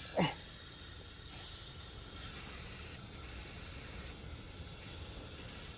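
Steady hiss of wind driving blowing snow in a ground blizzard, swelling twice with gusts.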